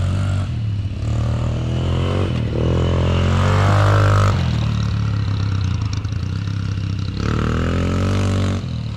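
ATV engines running steadily, one revving up twice with a rising then falling pitch, once about two and a half seconds in and again near the end.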